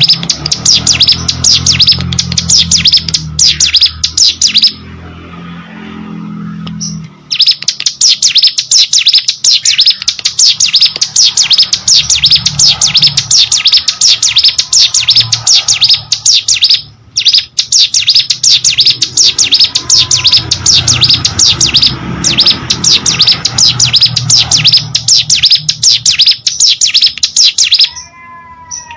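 Ciblek gunung, a small prinia, singing nonstop in a fast, loud run of high chirps. The song stops for about two seconds around five seconds in and breaks briefly midway. Near the end it gives way to a short, lower call.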